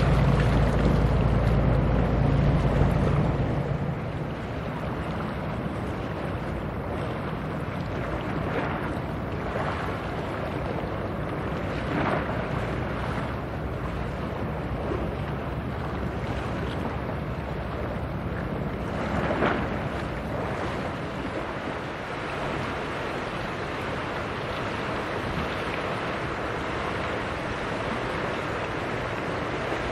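A ship's engine drones low and steady, then cuts off suddenly about three seconds in. What remains is the wash of sea waves and wind on the microphone, with a few brief louder surges.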